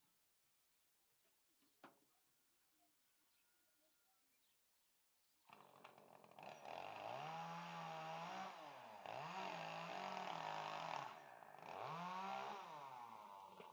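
Faint bird chirps, then about halfway through a chainsaw in the tree comes in abruptly and runs loud, its engine revving up and down several times.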